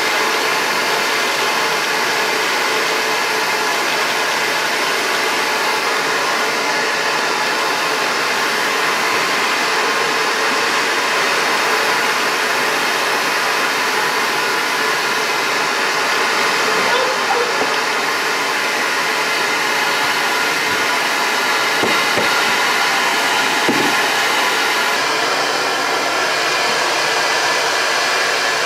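Bee vacuum's motor running steadily, with a few faint knocks about three-quarters of the way through.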